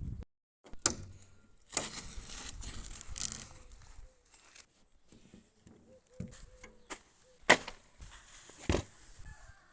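Handling noises: a few sharp knocks and clicks, with a stretch of rustling and scraping about two seconds in. No engine is running.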